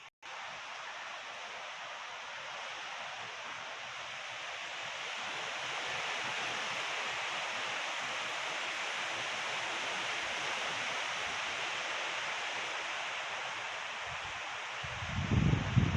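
Gusty wind rushing through trees, a steady hiss that slowly swells. Near the end a stronger gust buffets the microphone with a brief low rumble.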